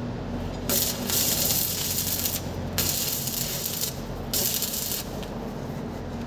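Stick-welding arc from a 2.5 mm electrode at about 110 A, crackling and hissing in three short bursts of one to two seconds each as tack welds are struck on a steel pipe-to-elbow joint.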